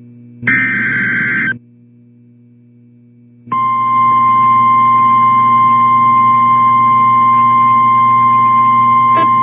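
Emergency Alert System SAME header: one burst of buzzy digital data tones about a second long, then about two seconds of low hum. About three and a half seconds in, the NOAA Weather Radio warning alarm tone starts, one steady high pitch, which signals that an alert message follows; a brief click comes near the end.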